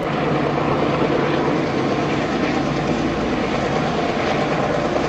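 Steady drone of a diesel freight locomotive's engine approaching along the line, heard before the train comes into view.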